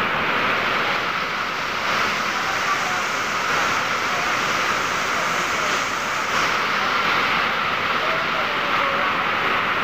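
Very heavy rain, a steady loud hiss of the downpour on a flooded paved yard, with water streaming off a roof edge close by.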